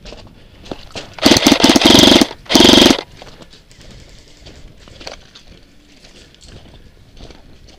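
Airsoft electric rifle, the uploader's G&G F2000, firing two full-auto bursts close to the microphone: a longer burst of about a second, then a short one about half a second later, each a rapid even rattle of the gearbox cycling.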